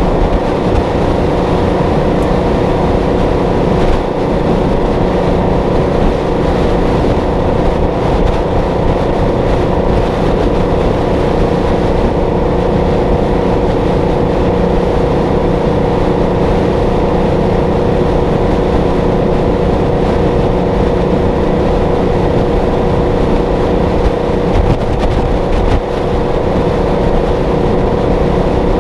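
Kenworth W900A's Detroit Diesel 12V71 two-stroke V12 running steadily at highway cruise while pulling a 40 ft container, its drone holding an even pitch and level.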